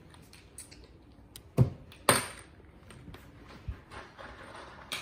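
Mighty Beanz, small hard plastic capsules, clicking and clattering against the plastic flip track tube: scattered light clicks, with two sharp knocks about one and a half and two seconds in.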